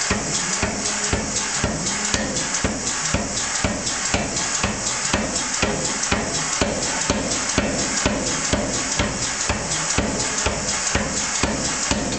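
Power hammer striking a 3/4-inch round steel bar between special grape-forming dies, a steady unbroken run of sharp blows about three a second.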